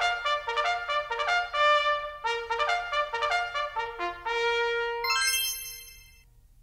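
Short brass fanfare: a quick run of trumpet-like notes stepping up and down, ending on a long held note that fades away.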